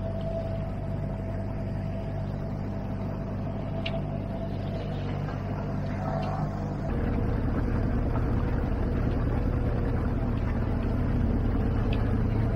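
Outboard motor of a MacGregor 26X sailboat running steadily at cruising speed. About seven seconds in, the hum changes abruptly to a slightly louder, different pitch.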